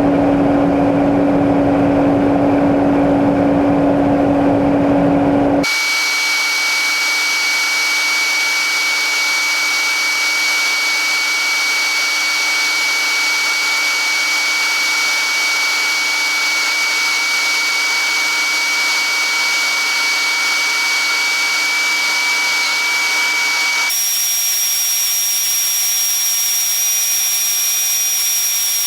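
Combine harvester running steadily: a constant machine hum with hiss and a fixed whine. The sound changes character abruptly about six seconds in and again near the end, losing its low end after the first change.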